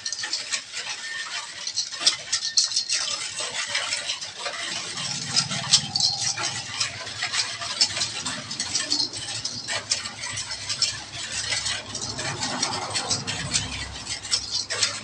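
A utensil stirring a sugary liquid in a stainless steel mixing bowl by hand: rapid, continuous clicking and scraping of the utensil against the metal.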